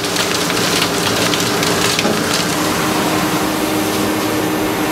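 Hwacheon CNC lathe finish-boring a 1018 cold-rolled steel clamp body with an insert drill: coolant sprays and splashes inside the enclosure over a steady hum from the spinning spindle.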